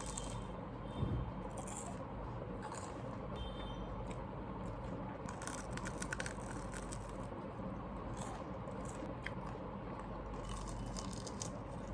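Someone eating a crispy peri peri potato twister (spiral-cut fried potato), with scattered short crunches and chewing over a steady low background hum.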